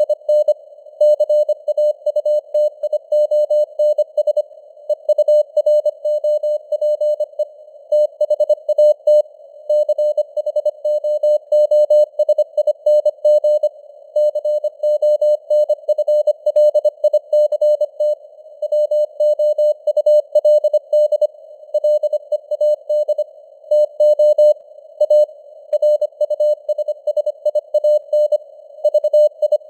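Morse code (CW) sent at 25 words per minute as a single keyed beep tone, rapid dots and dashes with short gaps, over a narrow band of simulated radio hiss. The signal strength rises and falls slightly (simulated QSB fading).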